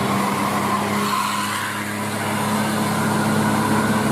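Bus engine running steadily, an even drone with a faint higher tone above it.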